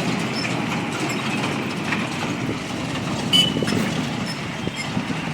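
A motor vehicle driving slowly over a broken, unpaved dirt road, giving a steady, dense noise with scattered small knocks, and a brief high squeak a little past three seconds in.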